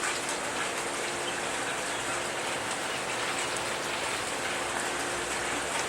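Steady rain falling, an even hiss of rain on surfaces, with a faint steady hum underneath.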